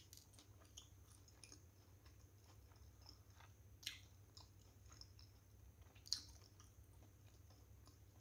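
Close-miked mouth sounds of someone chewing soft steamed momos: faint wet clicks and smacks, with two louder smacks about four and six seconds in, over a low steady hum.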